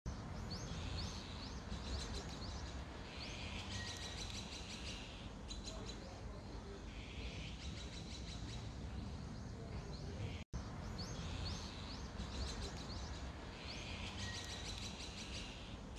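Small songbirds singing in repeated phrases of quick, high chirps and trills, over a steady low rumble of outdoor background noise. The sound cuts out for an instant about ten seconds in.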